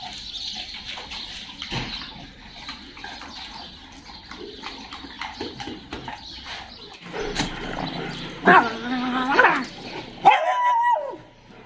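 Dogs in a pack, with one dog giving two loud, drawn-out whines that slide in pitch, about eight and a half seconds in and again near the end.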